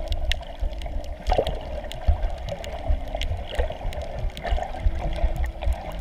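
Muffled underwater sound picked up by a submerged camera: low irregular thumping from water moving against the housing, a steady watery hiss, and scattered sharp crackling clicks.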